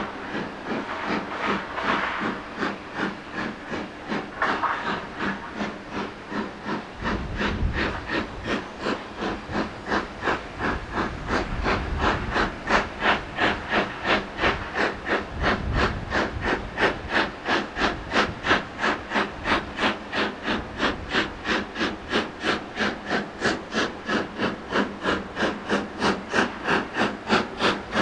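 Midland 4F 0-6-0 steam locomotive 43924 working under steam, its exhaust beating in a steady, even rhythm with steam hiss. The beats grow louder and sharper as the engine approaches.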